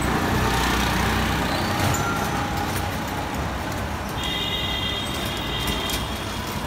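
Busy city street traffic: a steady rumble of engines and road noise. About four seconds in, a high-pitched horn sounds and is held for about two and a half seconds.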